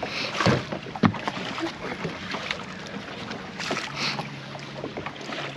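Water splashing and sloshing, with several sharp knocks, as a hooked fish is fought at the side of the boat and brought to a landing net.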